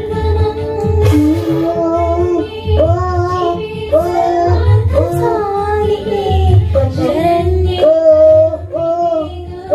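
Background music: a song with a high singing voice carrying the melody over a drum beat.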